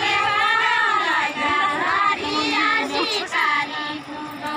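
High-pitched women's voices singing a Nepali Deuda folk song, the melody held and wavering in drawn-out phrases with short breaks between them.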